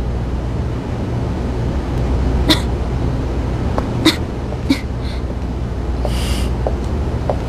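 A few sharp clicks, with a short hiss about six seconds in and small ticks near the end, over a steady low hum.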